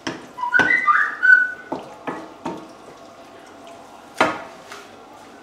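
Wooden spoon stirring a frying pan of minced meat in tomato sauce, knocking sharply against the pan about seven times, the loudest knock about four seconds in. About half a second in, a brief whistle-like tone steps up and down for about a second.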